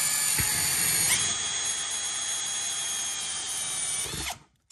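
Klutch cordless drill boring a 30 mm (1 3/16-inch) hole through a plastic case with the bit from the USB/voltmeter kit. The motor gives a steady whine that steps up in pitch about a second in and then holds, and it stops abruptly shortly before the end.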